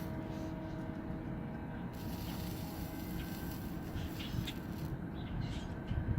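Faint clicks and rustles of hands working small wires, over a steady low background rumble with a faint hum.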